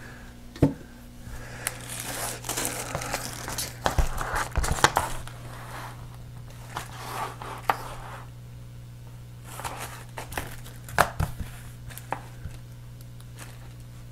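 Plastic packaging crinkling as the phone set's parts are unpacked and handled, in two spells, with a few sharp knocks as pieces are set down on the table.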